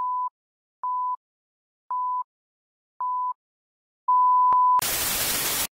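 Film-leader countdown beep effect: a short, high, pure-tone beep about once a second, four times, then a longer, louder beep with a click in it, followed by about a second of loud static hiss that cuts off suddenly.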